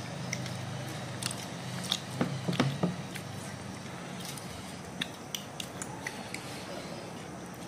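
A child eating rice with her fingers close to the microphone: short wet mouth clicks and smacks of chewing, with a cluster of louder ones about two to three seconds in, over a low steady hum.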